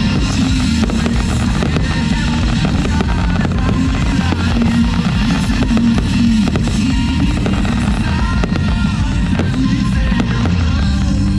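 Aerial fireworks bursting and crackling in a dense, continuous string of pops over loud music.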